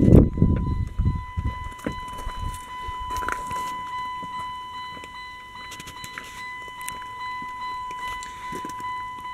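A low bump and rumble as the 2007 Saturn Vue's driver's door is swung open, then the car's warning chime sounding as one steady high tone with the door open, with faint clicks and rustles of handling.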